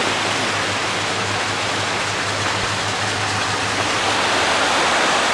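Flood-swollen creek pouring over a small waterfall: a steady, loud rush of water.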